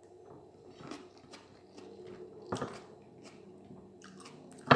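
Eating sounds: quiet chewing and mouth clicks, with light contact of fingers on a plate as rice and egg are eaten by hand. A short louder sound comes about halfway through, and one sharp click near the end is the loudest sound.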